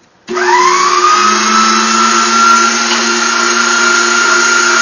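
Spremy electric tomato strainer's motor switching on about a third of a second in and spinning up, its whine rising in pitch for about a second, then running steadily and loud.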